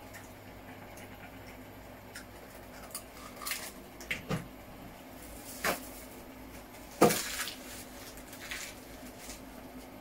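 Kitchen handling sounds: a handful of scattered knocks and clatters of things being picked up and set down, the sharpest about seven seconds in, over a steady low hum.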